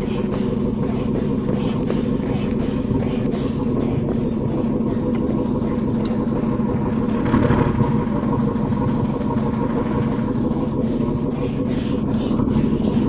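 Steady engine drone of a large river vessel, a constant hum of several even tones that holds without a break and grows a little louder near the end.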